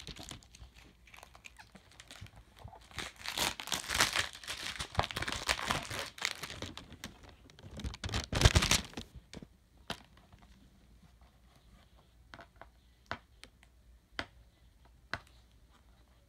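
Plastic wrapping on a DVD case being crinkled and torn open: a few seconds of dense crinkling and tearing, loudest just past the middle, then sparse crackles and clicks as the handling slows.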